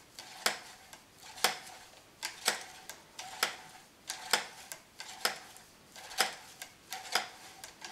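Cleaning rod pushed back and forth through the barrel of a Hatsan AT-P1 PCP air pistol, giving a sharp click with a short metallic ring at each stroke, about once a second. The rod now runs with almost no friction in the oiled barrel.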